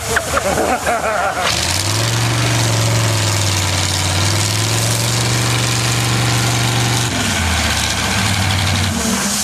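Tractor engine picking up about a second and a half in and running hard at a steady high pitch, then dropping to a lower pitch about seven seconds in.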